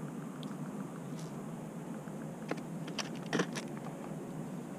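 A few light clicks and knocks of fishing gear being handled on a boat deck, over a steady low hum. The loudest knock comes about three and a half seconds in.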